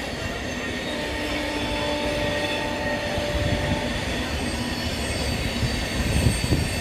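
Ranchi Rajdhani Express passenger train running along the track: a continuous rumble of wheels on rail, with a faint thin wheel squeal for a few seconds early on, growing slowly louder, with heavier low thuds coming in near the end.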